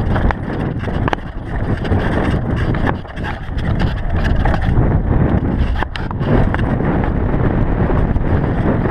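Wind buffeting a helmet-mounted camera as a GT DHi downhill mountain bike descends a rough dirt singletrack, with the bike's rattle and clatter over rocks and roots and a couple of sharp knocks.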